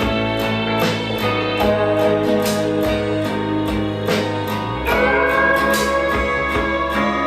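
Guitar-led music with bass and a steady beat, played back through JBL Decade L16 bookshelf loudspeakers. A new sustained high note comes in about five seconds in.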